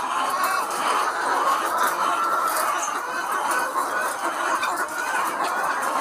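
A large flock of caged hens clucking together: a dense, steady chorus of many overlapping calls.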